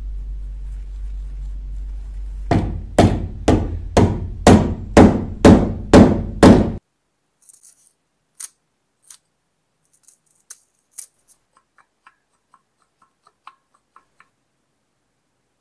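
A run of about nine heavy knocks, about two a second, over a low rumble; both stop suddenly, leaving only faint scattered clicks.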